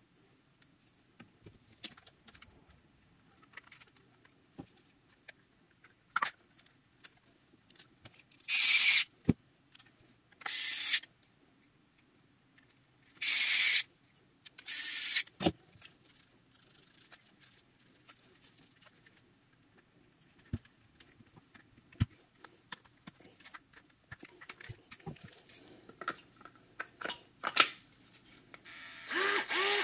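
Small clicks and taps from handling a cordless screwdriver's plastic parts, with four short, loud rushing noises between about 8 and 15 seconds in. Right at the end the DeWalt gyroscopic screwdriver's motor starts to whir.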